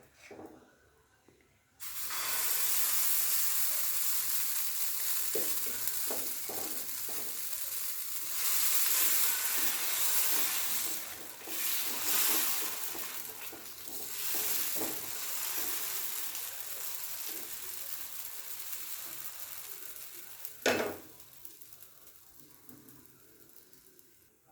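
Dosa batter sizzling on a hot griddle. The hiss starts suddenly, swells and dips, then slowly dies away, with one sharp knock near the end.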